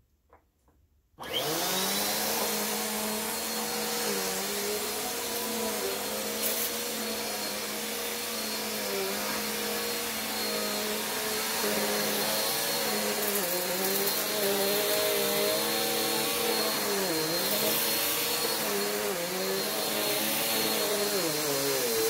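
Bissell PowerForce upright bagless vacuum cleaner switched on about a second in, its motor then running with a steady whine whose pitch dips briefly now and then.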